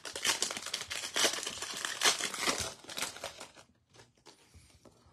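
A Chronicles baseball card pack's wrapper being torn open and crinkled: dense crackling for about three and a half seconds, then only a few faint rustles.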